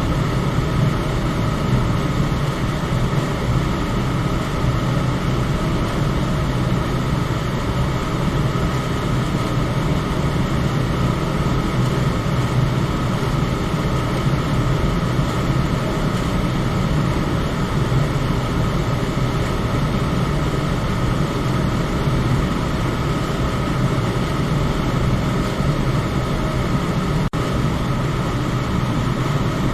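Electric fan running steadily: a constant whirring rush with a low hum underneath and a faint steady tone above it. There is a momentary dropout near the end.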